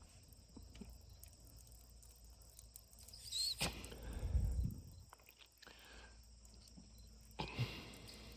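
Mostly quiet handling, with one short stretch of blowing about halfway through as air is blown back through the carburetor's fuel inlet to free a sticking float needle valve. A few light clicks come from handling the parts.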